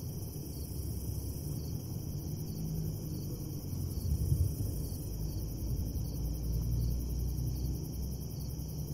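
Crickets chirping in a steady, fast pulse, over a continuous low rumble.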